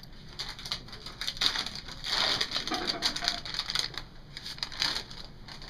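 Packaging crinkling and crackling as it is opened and handled, with irregular sharp clicks and a denser crinkle about two seconds in.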